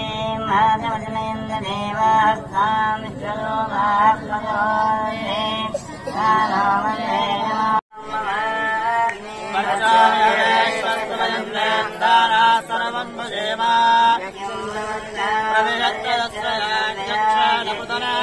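Voices singing a devotional Hindu chant to a melody. The sound cuts out for a moment about eight seconds in, then the singing carries on.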